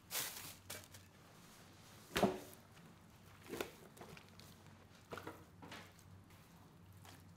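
A few scattered knocks and clatters of handling work, the loudest about two seconds in, over a faint steady low hum.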